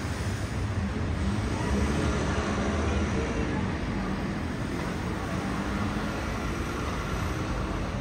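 City street traffic: cars and buses running as they move slowly past, a steady low rumble.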